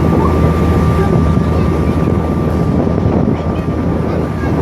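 Boat engine running steadily with a low drone and a thin, steady high whine, over a wash of wind and water noise.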